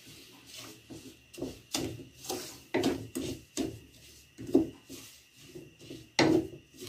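Wooden spatula stirring and scraping around a pot of sugar syrup and lumps of ghee: a run of irregular rubbing strokes, the loudest a little after six seconds in.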